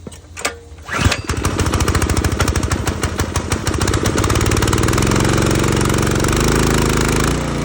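Gas-powered Mi-T-M pressure washer's engine pull-started: it catches about a second in and runs loud and fast on choke, its note shifting a little as it settles.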